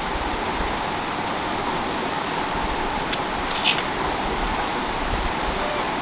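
A steady rushing noise, with one short hissing scrape about three and a half seconds in.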